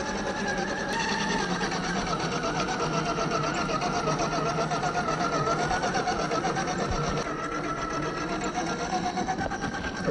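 Electric motor and gear train of a 1/10-scale RC crawler whining steadily, the pitch wavering up and down; the sound drops a little in loudness about seven seconds in.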